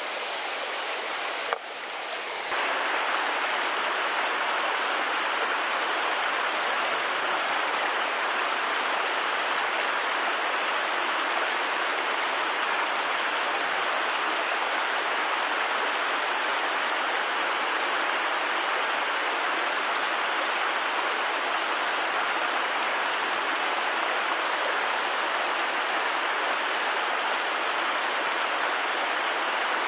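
Shallow stream water rushing steadily over rock ledges and small cascades. There is a short click about a second and a half in, after which the rushing is louder and stays even.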